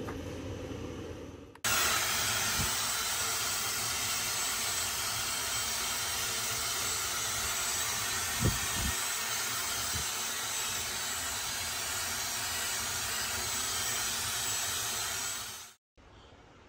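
A loud, steady rushing hiss that starts abruptly about a second and a half in and cuts off just before the end, with a soft thump about eight and a half seconds in.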